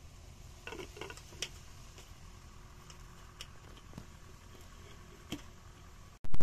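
A few light clicks and taps of a glass lid being handled and set down on a metal cooking pot, over a faint low rumble. A sudden loud sound cuts in at the very end.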